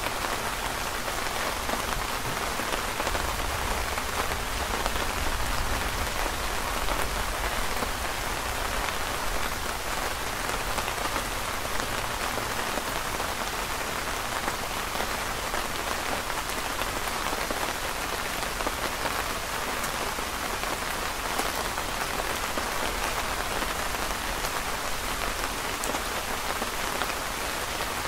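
Steady rain falling on a canopy overhead and on the ground around it, an even hiss of many small drops with no letup.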